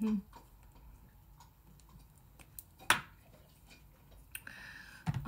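Light clicks and taps of makeup containers being handled, with one sharper click about three seconds in and a brief soft hiss near the end.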